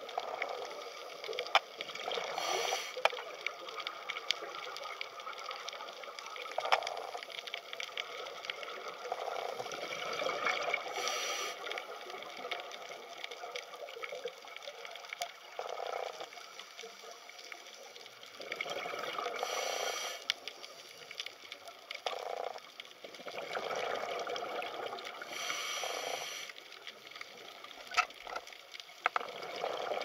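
Water bubbling and trickling, swelling and fading every few seconds, with scattered small clicks.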